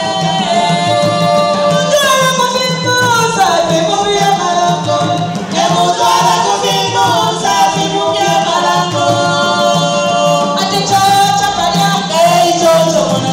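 Group singing in chorus over tall wooden hand drums beating a steady rhythm.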